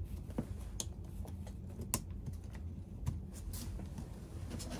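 Light, irregular clicks and taps of a coiled steel recoil spring and a plastic Husqvarna 288 XP chainsaw starter housing being handled as the spring is worked into the housing, over a low steady hum.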